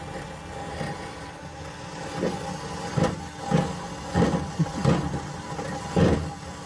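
Wire brush scrubbing rusty metal on a car's underside in a run of short strokes, starting about halfway through, over a steady hum.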